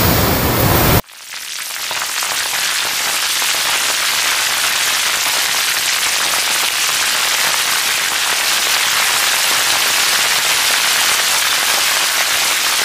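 Hot oil sizzling steadily as a puri deep-fries in a wok. The sizzle starts about a second in and builds quickly to a steady level.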